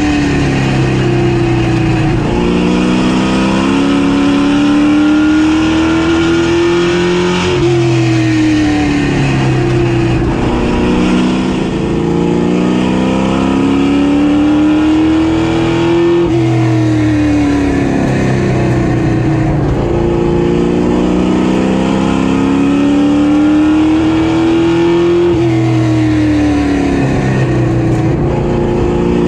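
Street stock race car engine running hard at speed. Its pitch climbs for about six seconds, then drops briefly before climbing again, about three times: accelerating down the straights and lifting off for the turns of an oval.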